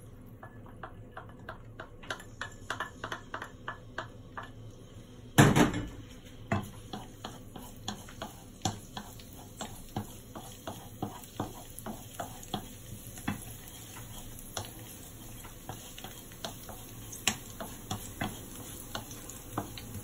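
Minced garlic tipped from a small bowl into a hot frying pan, with a quick run of light taps. One loud knock comes about five seconds in. Then a wooden spatula stirs the garlic, clicking against the pan about once a second.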